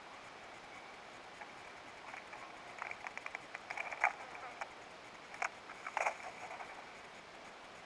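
Steller's jay pecking at and picking up peanuts in the shell, a scatter of light dry clicks and taps, with the sharpest knocks about four seconds in and again near six seconds.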